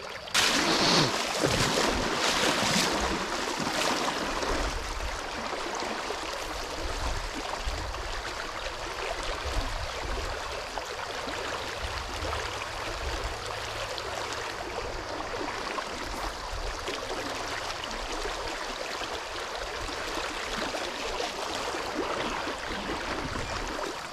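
Shallow, rocky trout-stream riffle flowing around the wading angler: a steady rush of moving water. It is a little louder for the first few seconds.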